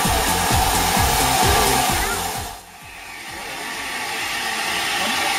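Steady hiss of steam from a standing LNER Q6 0-8-0 steam locomotive, with a rhythmic low pulsing, about three beats a second, in the first half. The sound drops away sharply about halfway through and then swells back up.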